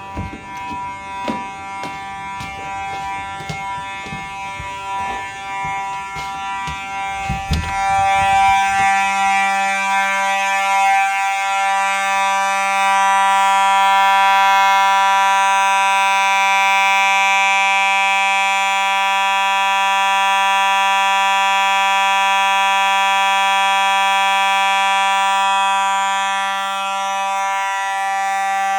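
Clicks and knocks of a smoke detector being handled, then, about eight seconds in, the smoke detector sounding: a loud, steady, buzzy alarm tone that holds without pulsing, dipping briefly twice.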